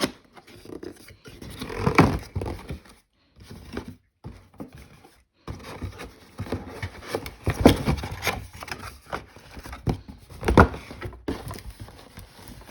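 A cardboard mystery box being opened and its contents handled: scraping and rustling with irregular thunks, the loudest about two seconds in, near eight seconds and near eleven.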